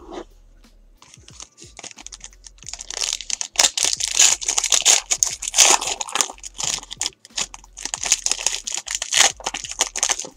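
A foil trading-card pack (Panini Elite Extra Edition) being torn open and crinkled by hand. It is almost quiet for about the first two seconds, then dense, sharp crackling of the wrapper follows to the end.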